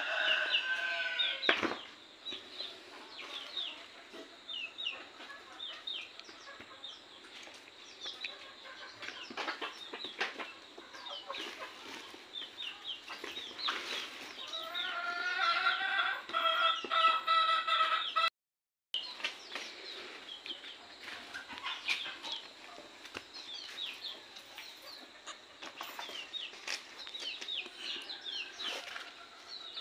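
Desi chickens clucking on and off, with a louder run of calls about halfway through, over the rustle of vegetable waste being sorted by hand.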